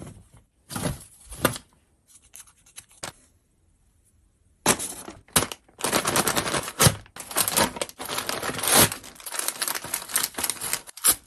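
Close-miked ASMR rustling of paper gift bags and tissue-paper wrapping, handled and crinkled by hand as the bags are opened. A few short rustles come first, then a pause of about a second and a half. Dense crinkling and tearing follows from about four and a half seconds in.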